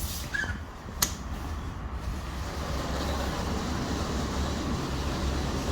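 An old Schindler lift, with one sharp click about a second in, then a steady low rumble that grows a little louder after about two seconds.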